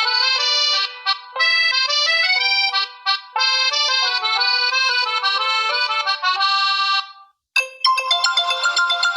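Honor 9A preset ringtone playing: a melody of quick stepping notes in three phrases with short breaks between them. It stops about seven seconds in, and after a brief pause a different, brighter ringtone starts.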